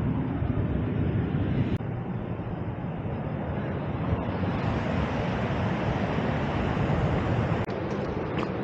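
Wind buffeting the camera's microphone over the steady wash of ocean surf, a constant low noise with no clear events.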